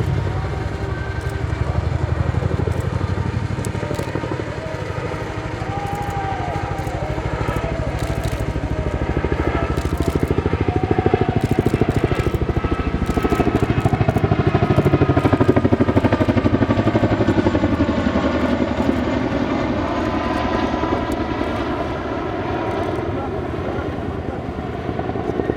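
CH-47J Chinook tandem-rotor helicopter in flight: its rotor blades beat rapidly over the running twin turboshaft engines. It grows louder toward the middle and fades after, with the pitch shifting as it passes.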